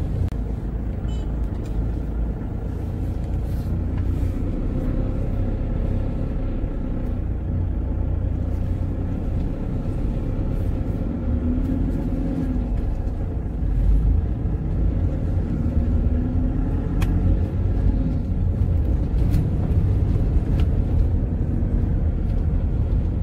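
Car cabin noise while driving slowly over a rough, potholed dirt road: a steady low rumble of engine and tyres, with an occasional knock and a louder bump partway through.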